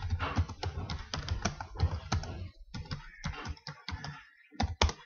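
Computer keyboard typing: a quick run of keystrokes, a short pause about two and a half seconds in, then more keys and two last strokes near the end.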